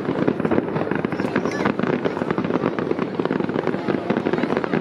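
Fireworks barrage: many shells bursting and crackling in quick succession, a dense run of sharp reports with no break.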